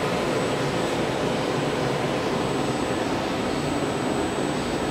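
Steady whooshing hum of running machinery and cooling fans, even throughout, with a faint high-pitched whine.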